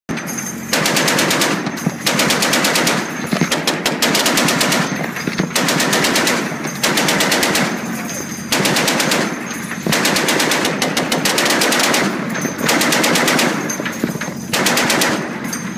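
A deck-mounted heavy machine gun of the M2 .50-calibre Browning type firing a string of short bursts, each about a second or so long, with brief pauses between them.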